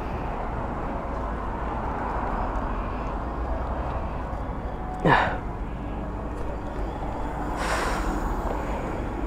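Steady city street traffic around a parked motorcycle, with a brief sharp sweeping sound about five seconds in. Near the end comes a short rustling rasp as a leather motorcycle glove is pulled off.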